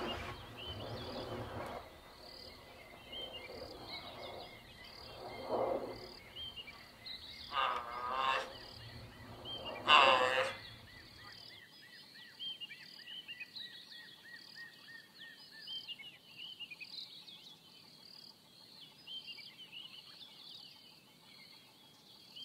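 Giraffe calls: several short pitched calls, the loudest about ten seconds in, over steady chirping of insects. The calls stop about halfway through, leaving only faint chirping.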